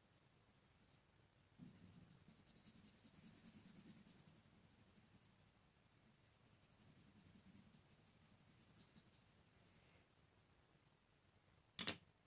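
Faint scratching of a coloured pencil drawn across paper in long strokes as an outline is traced. Near the end, one sharp click.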